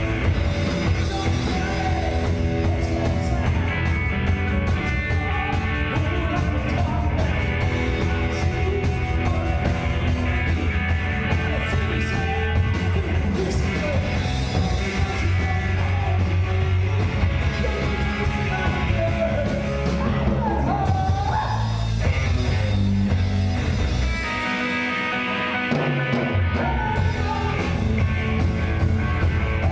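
Live rock band with sung and shouted lead vocals over electric guitars, keyboards, bass and drums. Near the end the bass and kick drum drop out for a couple of seconds, then come back in.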